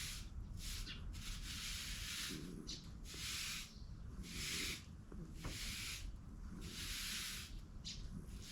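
Repeated brushing strokes, a scratchy rasp coming in even pulls about once a second.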